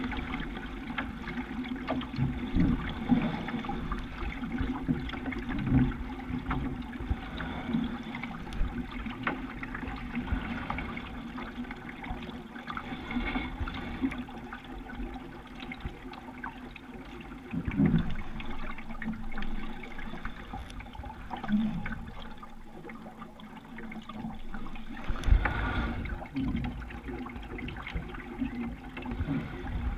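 Water lapping and splashing against the bow of a Rooster 8.1 sailing dinghy under way, in uneven surges, with a louder low rush about 25 seconds in.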